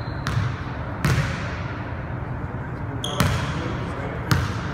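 A basketball bouncing four times on a hardwood gym floor, each bounce echoing in the hall, with a brief high sneaker squeak just before the third bounce.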